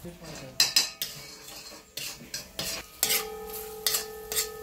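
A metal utensil clinking and scraping against a metal pot as food is stirred, with several sharp knocks. From about three seconds in the struck pot rings on with a steady tone.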